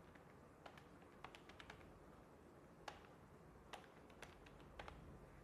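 Faint, irregular clicks and taps of a marker tip on a whiteboard as figures and words are written, about a dozen over a few seconds.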